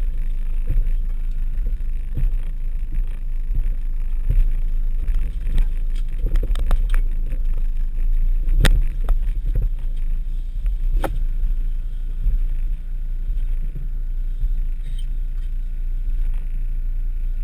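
VW T3 Syncro van crawling over a rough forest track, heard from inside the cab: a steady low engine and drivetrain rumble with body knocks and rattles over the bumps. The two loudest knocks come about halfway through and again a couple of seconds later.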